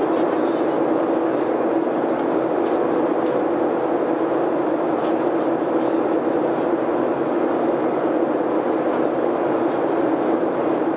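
Steady drone of jet engines and rushing air inside an airliner cabin in flight: an even rushing noise with a low steady hum underneath.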